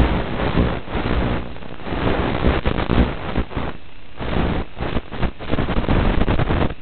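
Rushing wind noise on the onboard FPV camera of a Skysurfer RC plane in flight, crackly and briefly cutting in and out.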